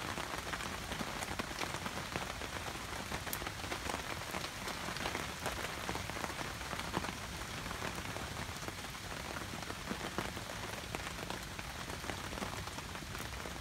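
Rain falling hard and steadily, a dense patter of many separate drops, loud enough to drown out the crackle of the campfire.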